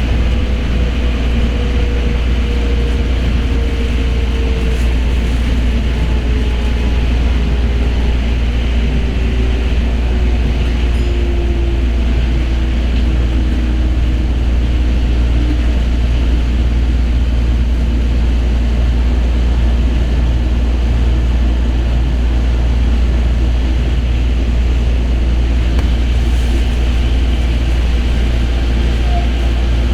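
Osaka Monorail 3000-series train running along its beam, heard from inside the car: a steady low rumble with a motor whine that slowly falls in pitch through the first half.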